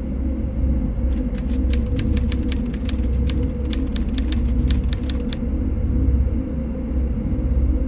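A quick run of sharp clicks, about six a second, from about a second in until about five seconds in, over a steady low rumble with a faint hum.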